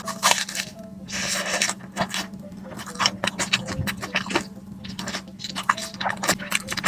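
Close-miked eating of a crispy mozzarella corn dog: crunching bites and chewing heard as a rapid, irregular run of clicks and crackles, over a steady low hum.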